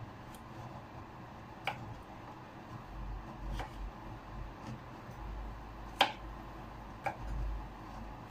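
A few scattered sharp clicks and knocks, the loudest about six seconds in, over a faint low rumble.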